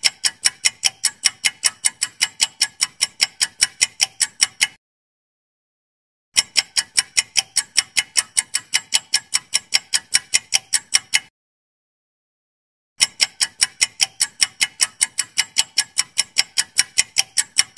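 Clock-ticking countdown timer sound effect: a rapid, even tick at about four to five a second. It comes in three runs of about five seconds each, broken by dead silence of under two seconds.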